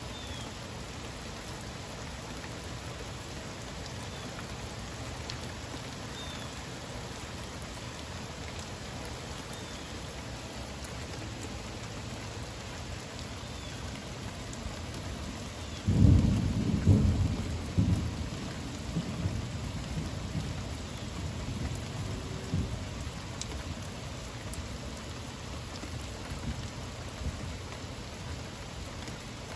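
Steady heavy rain falling, with a sudden loud thunderclap about halfway through that rumbles on for several seconds and fades.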